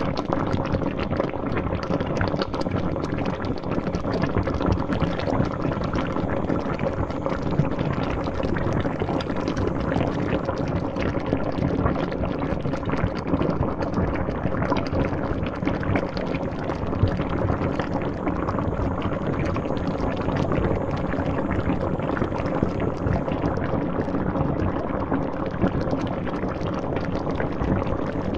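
Pot of water boiling: dense, steady bubbling and popping that never lets up.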